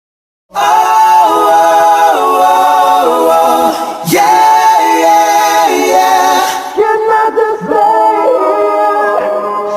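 A cappella singing: several voices in harmony without instruments, starting suddenly after a brief silence about half a second in. There is a short sharp click around four seconds in.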